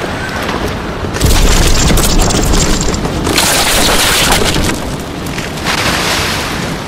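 Storm sound effects: a sudden deep boom about a second in, followed by two swells of rushing wind and waves.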